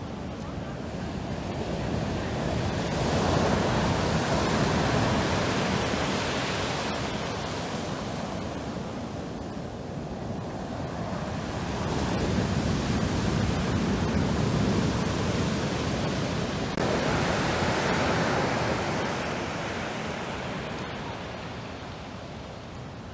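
Black Sea surf washing onto the shore: a steady rush of foaming waves that swells and ebbs, with three louder surges as waves break.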